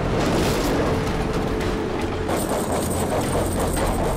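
Heavy truck engine running with a steady low rumble under noisy road sound; the sound changes abruptly about two seconds in.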